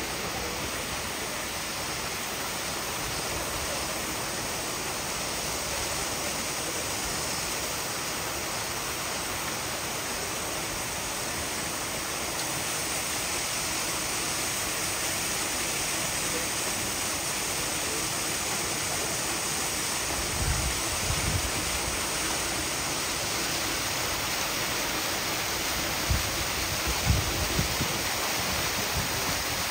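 Steady rush of water pouring over the rock ledge of an artificial waterfall into a pool. A few short low bumps come through near the end.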